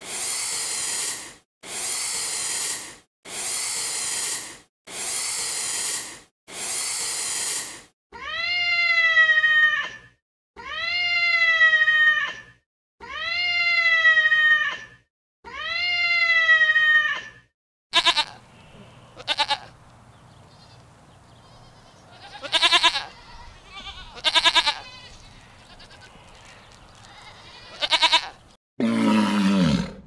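An iguana hissing six times in even bursts. Then a wild cat gives four drawn-out wailing meows of about two seconds each, followed by a few short, sharp calls, and a lion's roar begins near the end.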